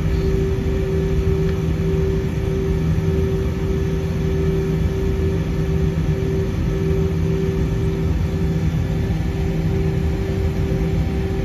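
Jet airliner's engines at idle during taxi, heard from inside the passenger cabin: a steady rumble with a constant droning hum.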